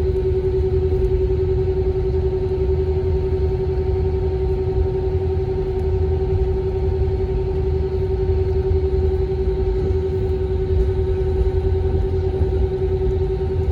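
Steady cabin noise inside an Airbus A321 airliner: a low rumble with a constant mid-pitched hum over it, unchanging throughout.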